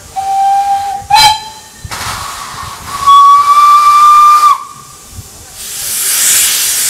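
Narrow-gauge steam locomotive's whistle: a short toot, then about two seconds later a longer, higher blast of about a second and a half. Near the end, loud hissing of steam from the open cylinder drain cocks.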